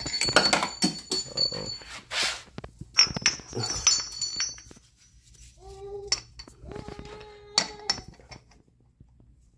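Steel exhaust pipe bends and tubes clinking and knocking against each other with a high metallic ring as they are picked up and handled. Around the middle come two short, steady whining tones.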